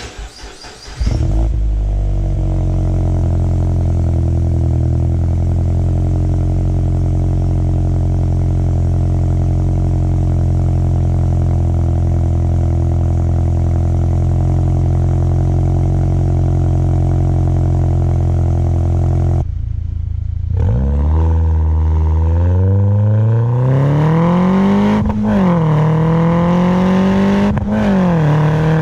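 Mini Cooper S N18 1.6-litre turbocharged four-cylinder running through a catless downpipe. It cranks and catches about a second in, idles steadily, then after a short break the revs climb slowly and it is blipped twice near the end.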